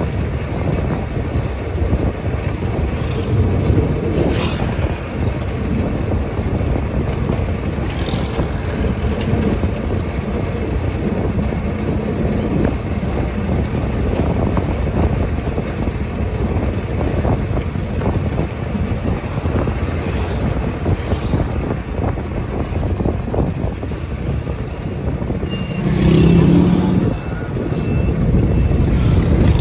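Steady road noise from a moving vehicle: its engine running at cruising speed with wind on the microphone. About 26 s in, a louder steady low tone lasts about a second as other vehicles approach.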